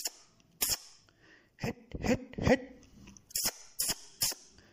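A Great Dane and a mastiff-type dog play-wrestling: about eight short, sharp snorts and huffs, with two brief grunts about two seconds in.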